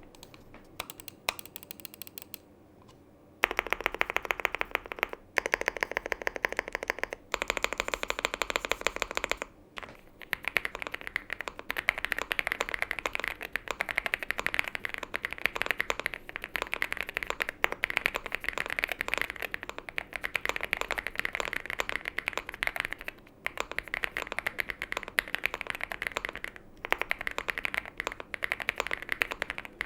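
Typing on a Leobog HI75 mechanical keyboard: a few faint clicks at first, then about three seconds in a fast, continuous run of key clacks broken by a few brief pauses.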